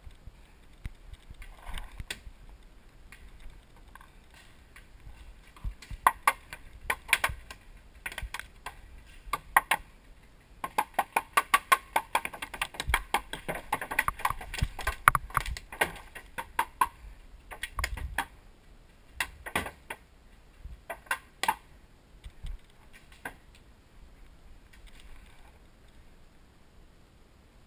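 Paintball fire: sharp pops and cracks, scattered at first, then a long rapid string of several a second through the middle, then a few more before it dies away.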